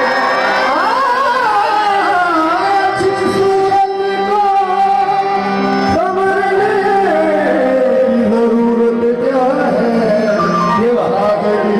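Live qawwali music: a singer's long, gliding, ornamented vocal line over steady held instrumental tones.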